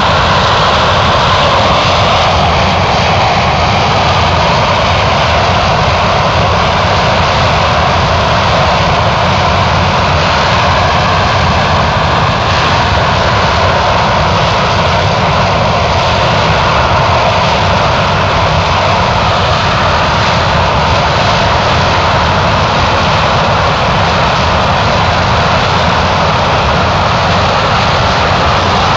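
Steady, unbroken drone of a light aircraft's piston engine and propeller in cruise, heard from inside the cabin of a Socata TB10 Tobago.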